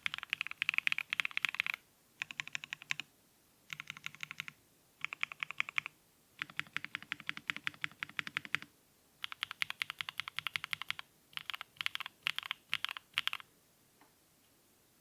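Plateless GOK 7V custom mechanical keyboard with L+F Black Cherry Pies switches, PE-foam and tape mods, and cherry-profile ABS keycaps being typed on. A quick run across the home row comes first, then short bursts of repeated presses on the stabilized keys (Holee-modded Durock V2 stabilizers), then fast runs on the G, H and J keys. The typing stops about a second and a half before the end.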